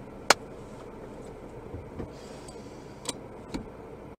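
Steady hum inside a stopped car's cabin, broken by sharp clicks: one about a third of a second in, then two more about half a second apart near the end.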